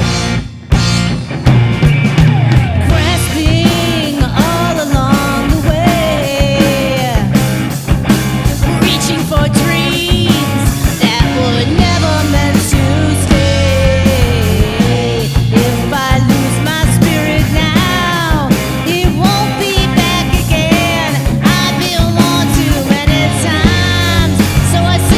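Instrumental rock ballad, with a flute carrying the wavering lead melody over drum kit, bass and guitar. The full band comes in about a second in, after a few drum hits.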